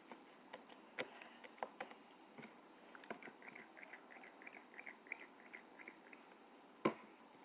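Homemade slime being kneaded and stretched by hand as activator is worked in, giving scattered small sticky clicks and a quick run of little squelchy pops, with one louder knock near the end.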